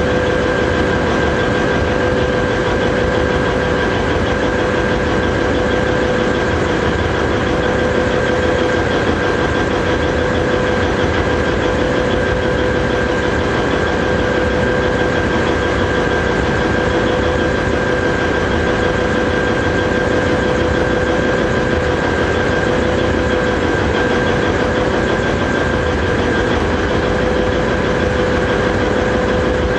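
Komatsu 830E haul truck's diesel engine idling steadily, with constant high tones riding over the rumble.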